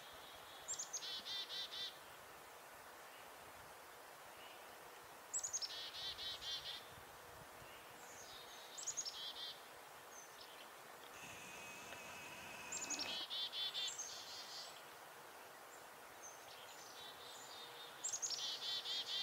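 Chickadee alarm calls, repeated about five times: each opens with a high thin note and runs into a quick string of rapid notes lasting a second or so.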